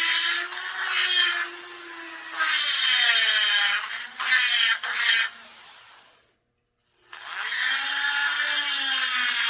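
A high-speed rotary grinder grinding out the ports of a McCulloch S550 chainsaw cylinder to remove restrictions. Its whine wavers and dips in pitch as the bit bites the metal, mixed with grinding hiss. The tool stops about six seconds in and starts again a second later.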